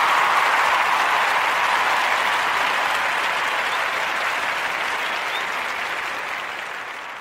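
Recorded audience applause played as a segment break, a dense steady clapping that slowly fades.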